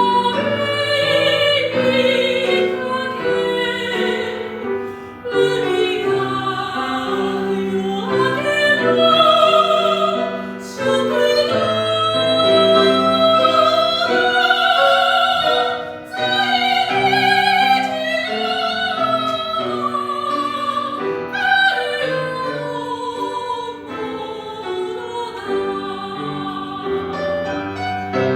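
Classical soprano singing an art song with vibrato, accompanied by piano.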